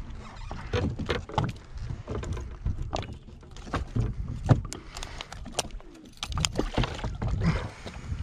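A musky being unhooked in a landing net at the boat's side: scattered clicks and knocks of pliers, lure and hooks, with water sloshing in the net.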